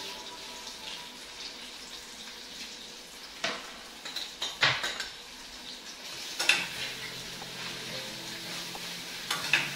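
Butter sizzling in a hot saucepan as chopped red onion goes in. A utensil knocks and scrapes against the pan several times, about three and a half seconds in, around four to five seconds, at six and a half seconds, and again near the end.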